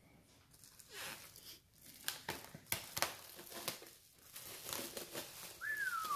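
Clear plastic wrap crinkling and crackling as it is pulled off a car-audio subwoofer. A short squeak falls in pitch near the end.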